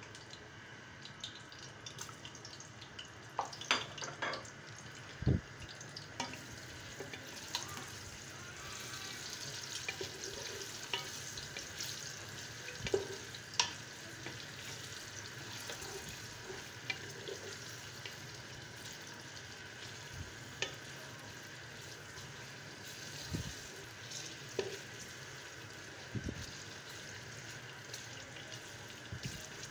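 Sliced onions sizzling in hot oil in an aluminium pressure cooker as a steady hiss, stirred with a wooden spatula that knocks and scrapes against the pot now and then.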